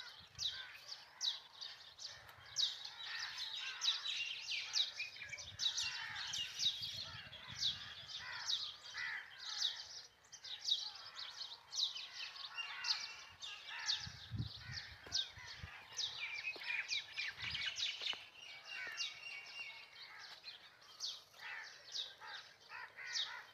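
Many small birds chirping and calling together, a busy chorus of short, quick notes with no pause, and a faint low rumble now and then.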